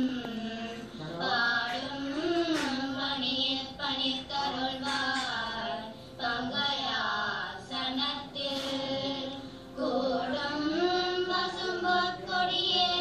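A group of girls singing a Tamil devotional hymn in unison, in long held phrases with short breaks between them.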